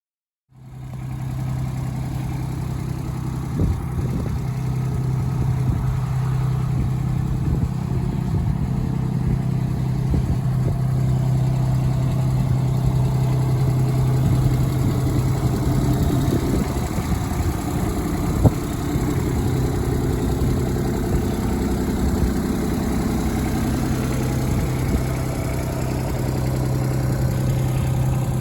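Case CX18B mini excavator's diesel engine running steadily, with a few short knocks.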